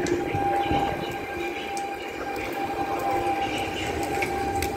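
PKP Intercity Stadler FLIRT electric multiple unit moving past close by along the platform, its electric drive giving a steady whine over the rumble of the wheels on the rails.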